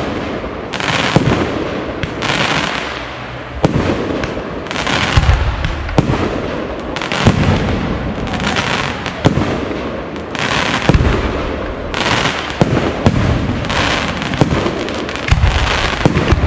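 Aerial firework shells bursting in quick succession, with a sharp bang every half second to a second and patches of crackling between the bangs.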